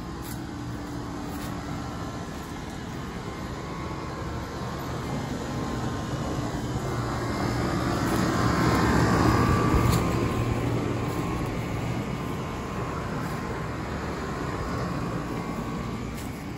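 Outdoor central air-conditioner condenser unit running: a steady fan-and-compressor hum that swells to its loudest about halfway through, then eases off.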